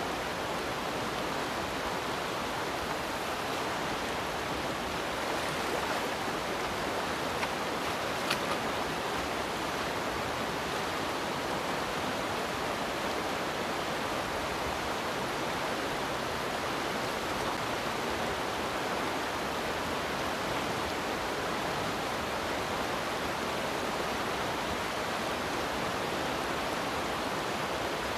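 Steady rush of a fast, shallow river running over rocks, with a single faint click about eight seconds in.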